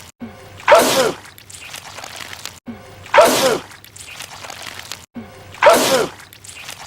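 A man sneezing goo three times, about two and a half seconds apart. Each sneeze is a loud burst with a pitched cry that rises and falls.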